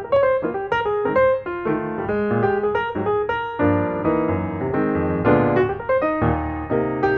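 Background piano music: a quick run of single notes over chords.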